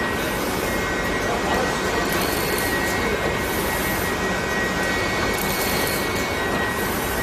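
A heat-transfer screen-printing machine line running: a steady machine roar with a constant high whine. Over it a high hiss comes and goes every second or two.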